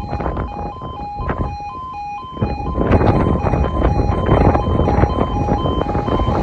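Level crossing alarm sounding its two-tone warning, switching between a higher and a lower pitch about twice a second. Under it is the rumble of a Class 170 diesel multiple unit, which grows louder from about two and a half seconds in as the train comes up to the crossing.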